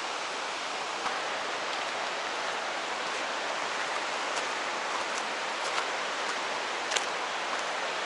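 Steady rushing of water filling the air, with a few faint footsteps.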